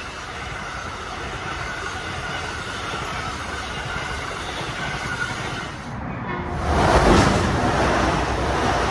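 An Amtrak Northeast Regional's passenger cars run past on a farther track with a steady rushing rumble of wheels on rail. About six and a half seconds in, a Metro-North express electric train sweeps by close at speed, with a sudden, much louder rush of wheels and air.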